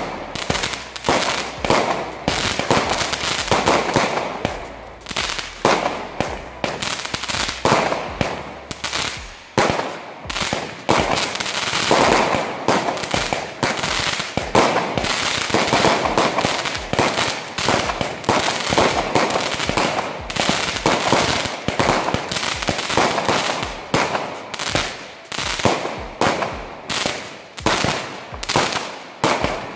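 Dreamcatcher consumer firework compound cake (Verbund) firing: a fast, unbroken string of launch shots and star bursts, several a second, as tubes of white glitter stars go up.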